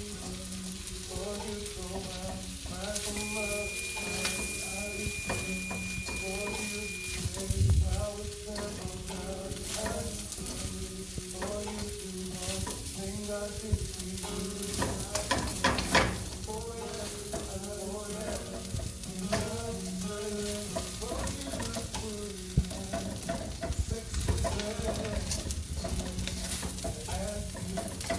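Fried rice sizzling in a hot pan as it is stirred and tossed, with the spatula scraping the pan now and then.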